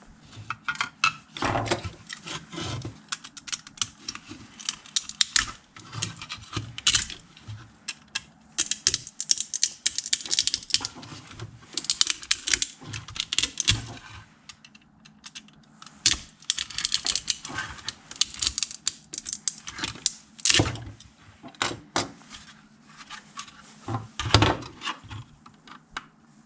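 Irregular clicking, cracking and scraping as thin 3D-printing support material is snapped and pried off a 3D-printed impeller, with a few louder cracks among many small ticks.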